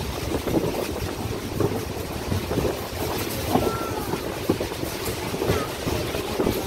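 Steady rumble and road or track noise of a moving vehicle heard from inside, with a few faint short squeaks about midway.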